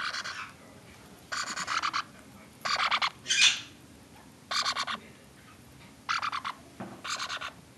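Young parrot chicks giving short, harsh, raspy begging calls, about seven in all, each around half a second long and made of fast stuttering pulses.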